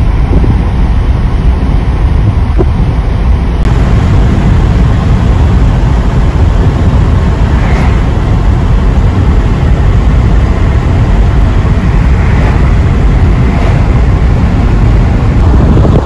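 Steady low rumble of a car driving, tyre, engine and wind noise heard from inside the cabin.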